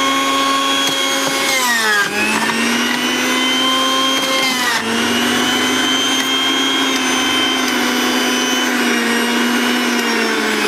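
Electric juicer motor running steadily with a high whine while pressing bottle gourd into juice. Its pitch sags briefly about two and five seconds in, and again near the end, as pieces pushed down the feed chute load it.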